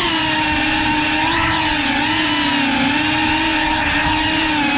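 GEPRC Cinelog cinewhoop quadcopter's electric motors and ducted propellers whining at a nearly steady throttle, the pitch holding level with only small dips.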